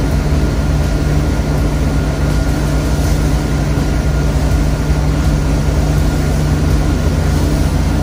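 Inboard engine of a 2008 Malibu VLX wake-surf boat running steadily at surf speed, a constant low drone, over the rush of churning wake water behind the stern.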